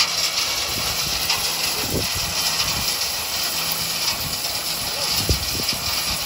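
Tractor engine running while the hydraulic tipping trolley raises its bed, with crushed stone sliding out over the tailgate in a steady rushing hiss.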